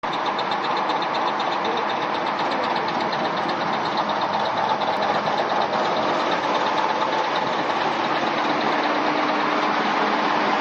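Large diesel generator engine (500 kW set) running steadily in freezing weather after a cold start. A rapid rhythmic clatter in the first few seconds fades as it runs on.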